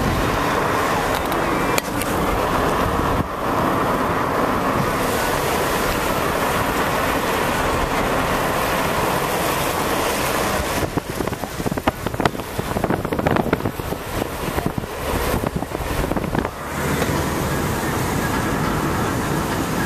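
Car driving on a wet road: a steady rush of tyre and wind noise, with irregular buffeting through the middle stretch.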